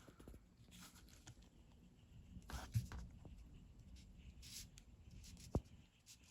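Faint rubbing and handling of leather strap pieces and tools on a workbench, with scattered light clicks; the sharpest comes about three seconds in, and a thin tick follows near the end.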